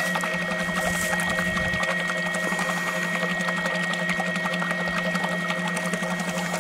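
Torqeedo electric outboard motor on an inflatable kayak, running at a steady speed: a steady high whine over a low hum.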